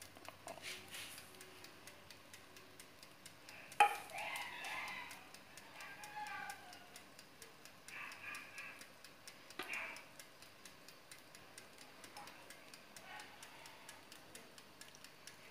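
Faint, steady ticking at about four ticks a second, like a clock, with a single sharp click about four seconds in. Faint voices are heard in snatches in the background for a few seconds after the click.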